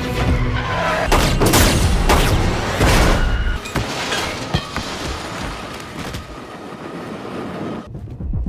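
Action-movie soundtrack: a run of heavy booms and impacts over film score. The hits are dense at first, then sparser and quieter, with one more hit near the end.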